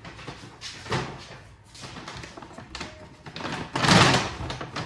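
Grocery items and their packaging being handled: a few separate bursts of rustling and knocking, the loudest about four seconds in.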